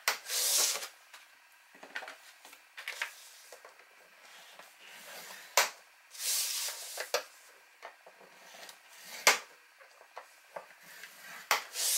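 A plastic scoring tool scraping along the grooves of a paper scoreboard as cardstock is scored, in several short strokes. Sharp taps come from the sheet being turned and set back on the board.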